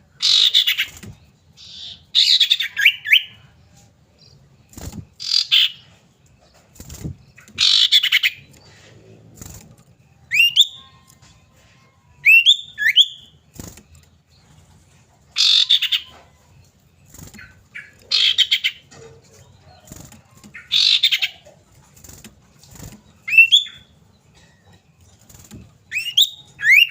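Common iora (cipow) calling: harsh chattering phrases every two to three seconds, alternating with short, sharply rising whistled notes. This is a lure track of iora calls, meant to set a caged iora singing.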